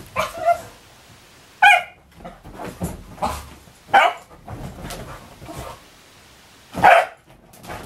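Working-type cocker spaniel barking while at play, with three loud, short barks about two to three seconds apart and quieter noises between.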